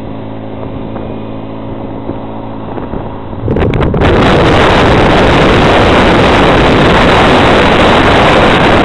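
A steady engine hum, which about three and a half seconds in cuts abruptly to a loud, even rushing noise.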